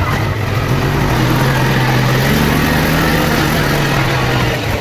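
Side-by-side UTV engine running under way, its note steady and a little higher through the middle before easing near the end, with wind and driving noise over it.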